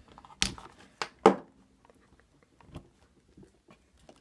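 A 9-volt battery being pulled off its snap clip: three sharp clicks in the first second and a half, the third the loudest, then a fainter click near three seconds.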